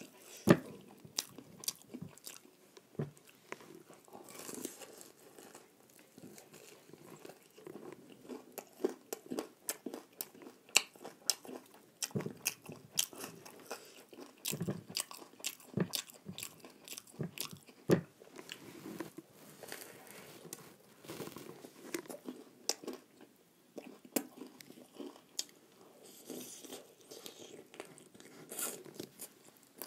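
Eating sounds: biting and chewing a fried chicken leg piece, a steady run of short crunches and clicks of uneven loudness.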